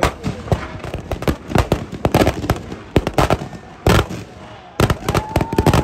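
Firecrackers going off in a rapid, uneven run of loud bangs, several overlapping, with the densest cluster near the end.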